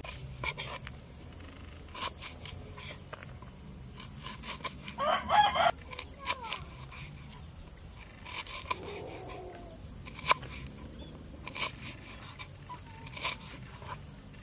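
Kitchen knife chopping a lemongrass stalk on a wooden chopping board: sharp knocks at uneven intervals. A chicken calls once, briefly, about five seconds in.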